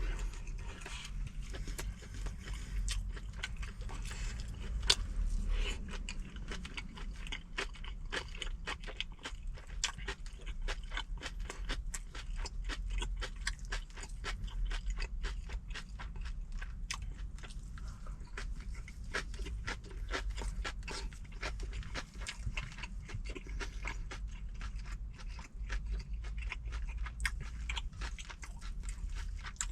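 Close-miked chewing and crunching of food: a dense run of irregular wet clicks and crunches that goes on throughout, over a steady low rumble.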